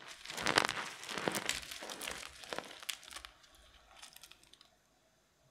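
Fingers crushing and crumbling a starch-coated eggshell shell and clumps of starch powder: dense runs of crunches and crackles that thin out after about three seconds and die away over the next second or so.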